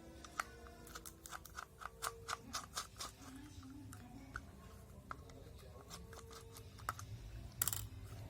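Irregular light clicks and taps of a small plastic handheld device being handled and worked on, about twenty over several seconds, some in quick runs.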